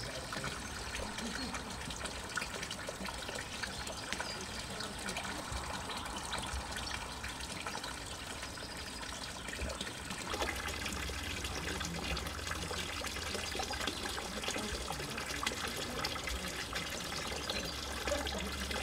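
Steady trickle and splash of a fountain's thin spout pouring into a stone water trough.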